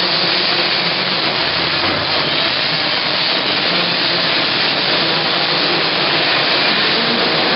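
A pack of 50cc two-stroke mini motocross bikes racing, their engines blending into one loud, steady noise.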